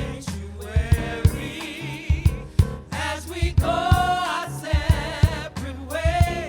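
Gospel song playing: voices singing with vibrato over drums and bass with a steady beat.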